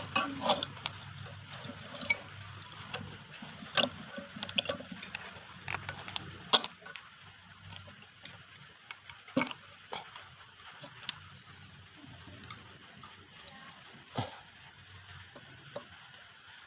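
Scattered metallic clicks and light scrapes from working the stuck, freshly oiled rotor of an opened compressor by hand; the rotor is still stiff. The clicks come thickly at first and thin out later.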